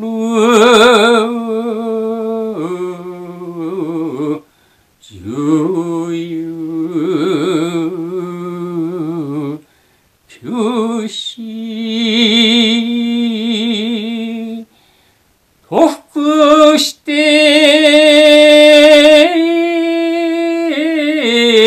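A male shigin chanter chanting a kanshi poem a cappella: long held, drawn-out notes with a wide wavering vibrato, in several phrases broken by short breath pauses. The last phrase, after a brief short note, is higher and the loudest.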